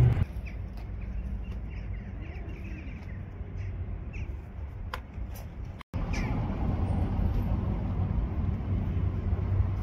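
Outdoor street background: a steady low rumble of traffic with a few short bird calls in the first half. The sound cuts out for an instant about six seconds in.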